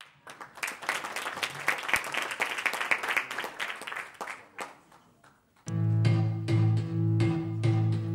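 Audience applause, many hands clapping, fading out over about the first four seconds. After a brief pause, recorded Bollywood dance music starts with a strong, pulsing bass.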